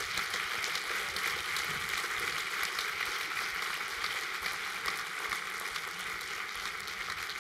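Audience applause: many hands clapping, dense and steady, after a talk ends.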